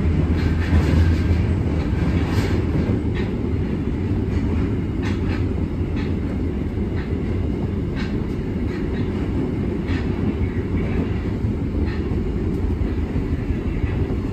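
Osaka Metro 22 series subway train running between stations, heard from inside the car: a steady low rumble of wheels on rail with scattered clicks from rail joints.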